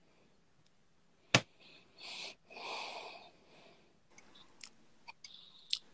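Phone microphone picking up handling and breath: one sharp click a little over a second in, then two short soft rushes of breath-like noise, then a few faint clicks near the end.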